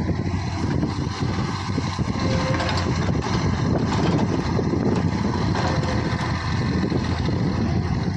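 Diesel engine of a JCB earthmoving machine running steadily, a low drone.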